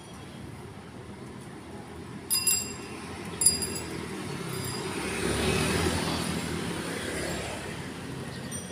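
Bicycle bells ringing twice, about two and three and a half seconds in, with a bright metallic ring. Between the rings and the middle, street traffic swells and fades as motorbikes pass.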